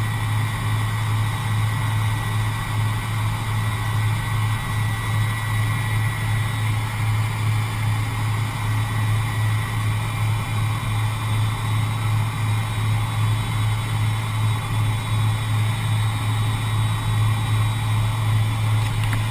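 Avro Vulcan's four Rolls-Royce Olympus turbojets heard from inside the crew compartment: a steady, loud low drone that pulses evenly. A thin high whine over it fades out about six seconds in.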